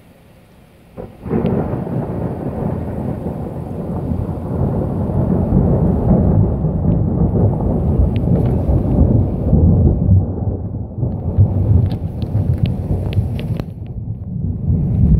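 Strong storm wind gusting and buffeting the microphone. It comes in suddenly about a second in as a loud, uneven low rumble and keeps on, with a few sharp ticks near the end.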